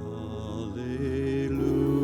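Slow worship music made of held, sustained chords, changing to a new chord twice, with a deeper bass note entering near the end.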